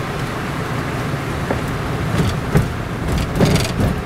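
Car driving on a wet, waterlogged road, heard from inside the cabin: steady low engine and tyre noise, with two louder swishes about two and three and a half seconds in.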